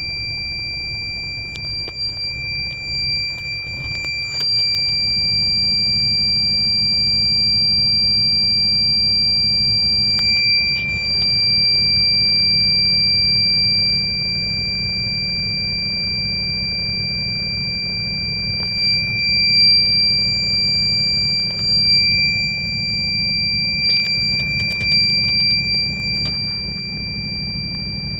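Truck cab warning buzzer sounding a continuous, steady, high-pitched tone without a break. It is a false alarm: nothing is wrong with the truck.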